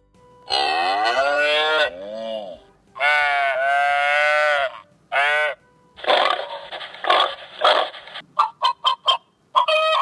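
Recorded farm-animal calls played through a children's sound book's small button speaker: long drawn-out moos and bleats, then shorter, rougher calls and a quick run of hen clucks near the end.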